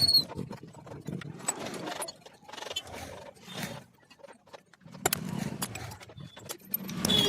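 Hand tools and loose metal engine parts clinking, clicking and scraping irregularly as a motorcycle engine's timing side is taken apart, with an uneven low rumble in between.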